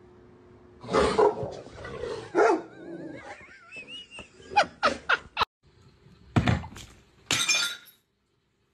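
A dog barking and growling in several short loud outbursts, mixed with sound from a video game on a television, including a wavering high tone in the middle.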